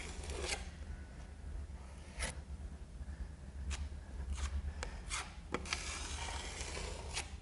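Metal putty knife scraping across a concrete floor, pressing patching compound into a crack and striking it off flat. Soft drawn-out scrapes with a handful of short, sharp scrapes or taps of the blade at irregular intervals.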